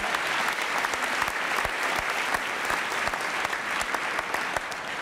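Theatre audience applauding, a dense patter of many hands clapping that begins to die down near the end.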